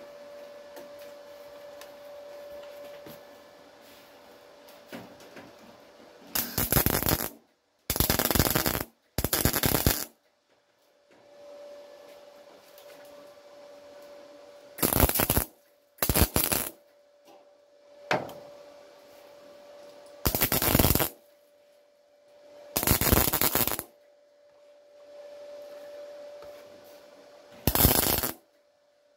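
MIG welder laying a series of short tack welds on thin sheet steel: eight separate crackling bursts, each under a second, at irregular gaps, with a faint steady hum between them.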